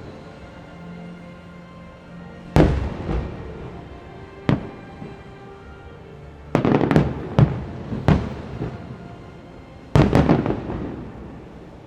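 Distant fireworks shells bursting: single bangs about two and a half and four and a half seconds in, then quick clusters of bangs around six to eight seconds and again near ten seconds, each trailing off in an echo. The fireworks show's music plays faintly underneath.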